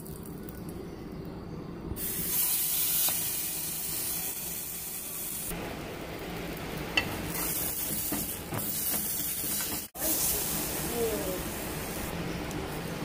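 Melted butter, then a slice of egg-soaked bread for French toast, sizzling in a frying pan: a steady hiss that grows louder about two seconds in.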